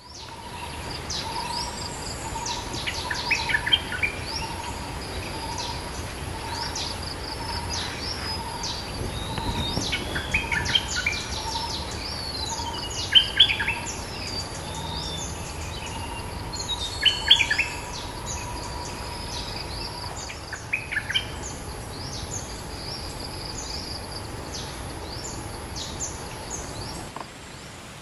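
Bulbul calls: clusters of quick, sharp, falling notes every few seconds. Under them runs a steady high insect hiss that stops near the end, with a soft low note repeated about once a second.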